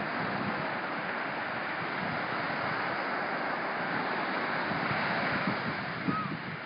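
Ocean surf washing steadily onto the beach, with wind gusting across the phone's microphone.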